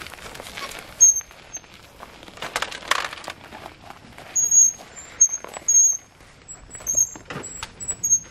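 Wheelbarrow loaded with gravel being pushed over dry ground, the stones rattling and shifting in the tray, with a series of short high-pitched squeaks.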